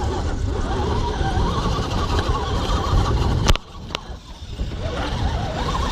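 Small vehicle motor running under a steady rumbling noise, with a wavering whine. The sound drops away suddenly with a click about three and a half seconds in, then comes back about a second later.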